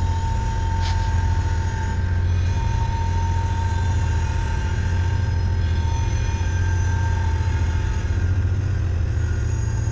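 BNSF diesel locomotives passing close by: a loud, steady low engine drone with a thin steady whine above it.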